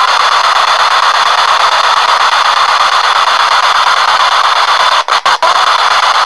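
P-SB7 spirit box sweeping through radio frequencies, heard as loud steady static hiss through an external speaker, with three brief dropouts about five seconds in.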